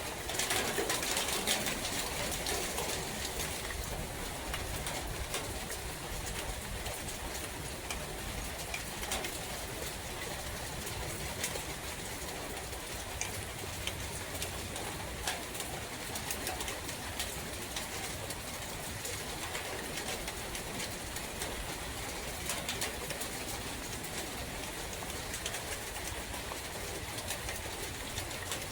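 Steady rain and wind in a forest, with scattered ticking drops and a bird calling.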